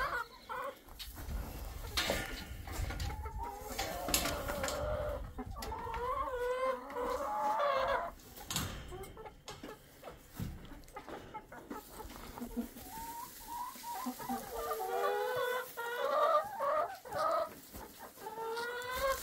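Chickens clucking and calling in drawn-out, wavering phrases, with a few sharp knocks in between.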